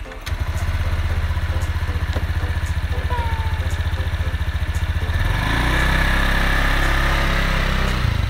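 Small motor scooter engine idling with a steady, rapid putter, then about five seconds in the throttle opens and the engine note rises and grows louder as the scooter pulls away.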